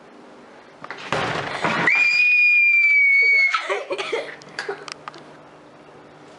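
A rough, noisy shout about a second in turns into a young girl's high-pitched scream, held for about a second and a half and sinking slightly in pitch; a few knocks and rustles follow.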